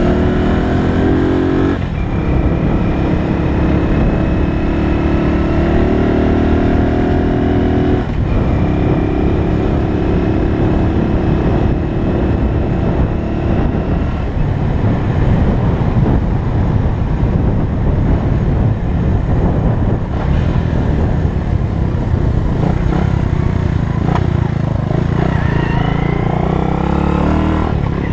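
1968 Honda S90's small single-cylinder four-stroke engine running under way, its note rising and dipping briefly at gear changes about two and eight seconds in. Through the middle the engine note sinks under road noise, then it climbs again near the end as the bike accelerates.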